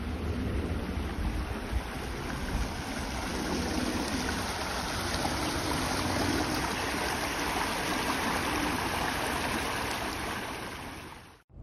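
Water rushing over stones in a small stone-walled irrigation channel beside a rice field: a steady babbling that grows a little fuller a few seconds in.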